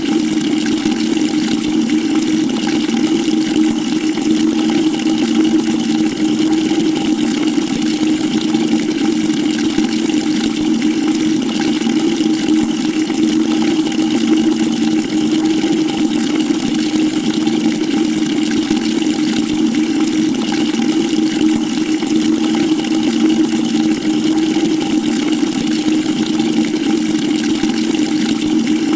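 Water pouring steadily into a bucket as it fills: an unbroken rush of water with a steady low tone underneath.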